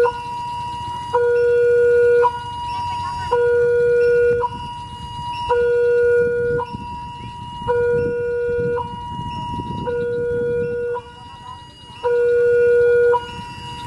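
Electronic two-tone warning alarm sounding continuously, switching between a high and a low tone an octave apart about once a second. Underneath it, a CC 203 diesel locomotive approaches with a low rumble that swells in the middle.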